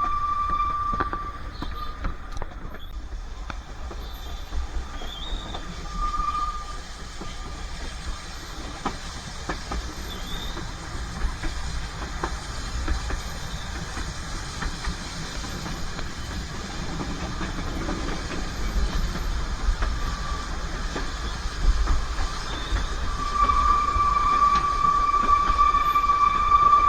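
Narrow-gauge train running on the rails with a steady low running noise, its wheels squealing on curves: a high, steady squeal at the start, briefly about six seconds in, and again, louder, for the last few seconds.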